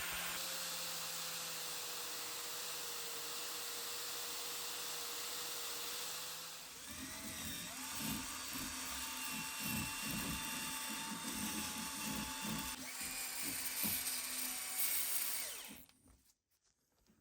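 Small high-speed power tool running with a steady whine. About 7 seconds in its pitch rises, and a rough, uneven scraping follows until it stops suddenly near the end.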